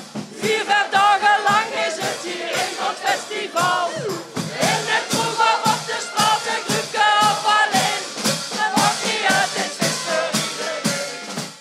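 Upbeat carnival party song with a steady beat, a crowd of people singing along loudly.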